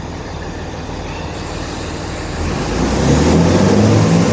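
Class 166 diesel multiple unit's engines running, then throttling up about two and a half seconds in as the train pulls away, the low drone growing louder.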